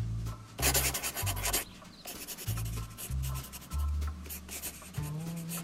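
Scratchy scribbling on paper, as in drawing, loudest in the first second and a half. Under it runs background music with a low bass line that steps from note to note.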